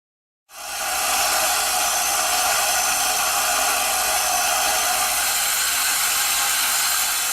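Steady hissing, whirring machining noise from a high-speed CNC lathe at work, cutting in abruptly about half a second in and holding even.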